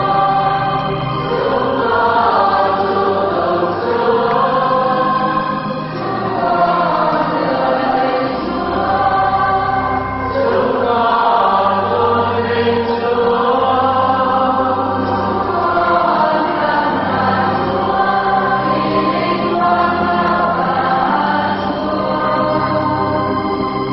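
Choir singing a hymn in long-held notes over steady low accompaniment.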